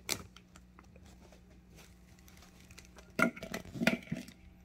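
A plastic zip bag rustles briefly at the start. About three seconds in, a plastic pestle knocks sharply in a plastic grinding bowl, followed by a few more knocks as it crushes fresh strawberries.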